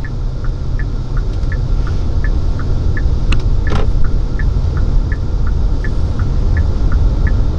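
Car cabin road rumble inside a taxi in slow traffic, with a turn-signal indicator ticking steadily in an alternating tick-tock, about three ticks a second. A brief sharp click and rustle a little past the middle.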